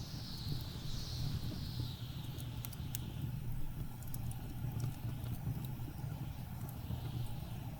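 Blizzard wind blowing with a steady low rumble and a whistling gust that swells and fades, while a wood fire gives sparse, sharp crackles.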